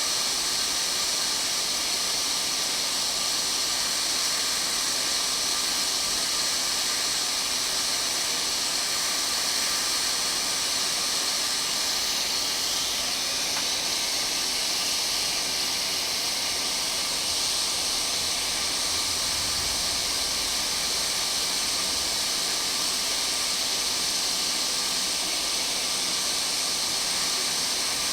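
Steady rushing-air hiss with a faint steady hum of a small fan, unchanging throughout.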